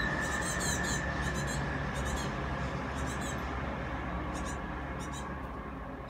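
Young great tits calling: clusters of short, high-pitched notes repeated every second or so, most frequent in the first second. Under the calls runs a steady background hum.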